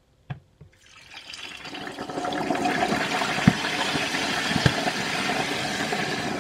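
A loud, steady rushing noise that builds up over about a second and a half and then holds, with a couple of sharp low knocks. Its level is enough to swamp the recording.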